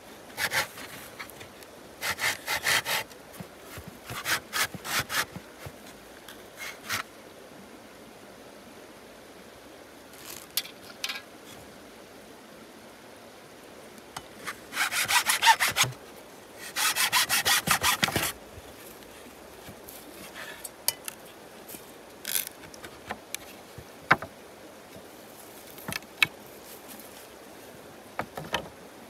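Small hand saw cutting through thin wooden slats in quick back-and-forth strokes, in several short bursts with pauses between, the longest two about halfway through. Later come only a few scattered clicks and knocks.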